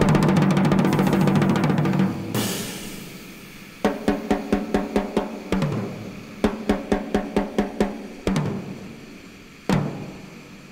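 Background music with drums: a sustained chord that fades, then quick runs of drum hits at about four a second broken by short pauses, and a single hit near the end.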